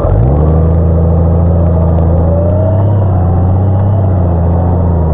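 Motorcycle engine pulling away from a stop. Its pitch climbs sharply in the first moment, then it runs on steadily at a constant pace.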